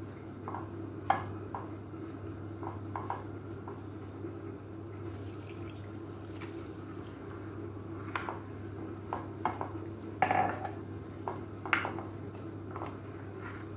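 Metal spoon stirring flour batter in a glass dish, clinking and scraping against the glass in irregular taps, with a cluster of louder clinks about ten seconds in.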